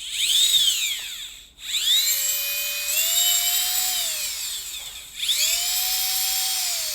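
Professional nail grinder's high-speed brushed electric motor, freshly repaired, spinning up and winding down three times: a high whine that rises in pitch, holds and falls away. The first run is brief, the second steps up to a higher speed about three seconds in, and the third is still winding down near the end.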